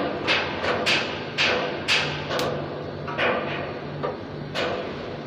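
Repeated hammer blows on metal, about two a second and slightly uneven, each ringing briefly.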